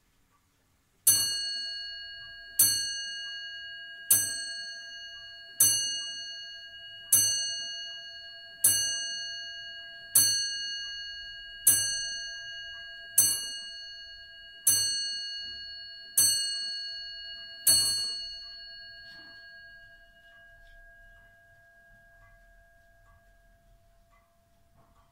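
Comtoise-style wall clock striking twelve on its bell: twelve evenly spaced strokes about a second and a half apart, each ringing out and fading, the last one ringing on for several seconds. The clock's faint ticking runs underneath.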